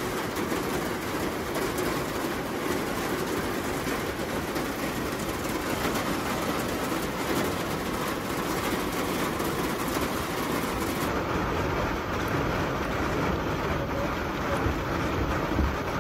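Rain falling steadily on a tent, a dense, even patter of drops.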